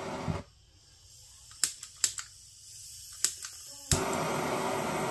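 RAVS butane torch flame hissing steadily, then cut off abruptly about half a second in. Several sharp clicks from the torch's controls follow, and a click just before the four-second mark relights it and the hiss returns.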